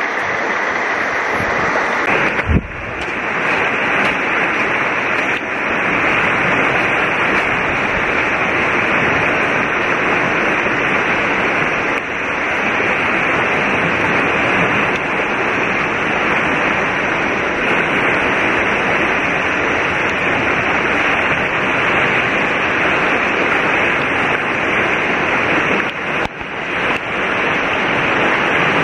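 Steady rushing of a swollen, fast-flowing river in flood, with a single thump about two and a half seconds in.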